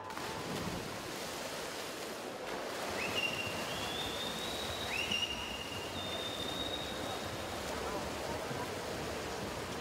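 Swimmers splashing freestyle through the water just after the dive, a steady wash of noise filling the pool hall. From about three seconds in, several shrill cheering whistles sound, each sliding up and then holding a high note for a second or two.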